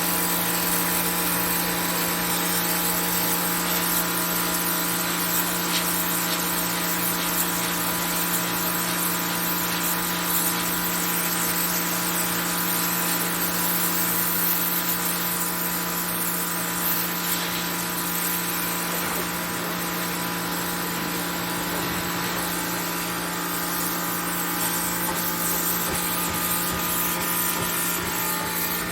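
Pressure washer running steadily, a constant machine hum with the hiss of the high-pressure water spray.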